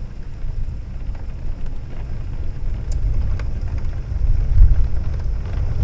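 Thunder rumbling low, swelling to its loudest about four and a half seconds in, over rain falling.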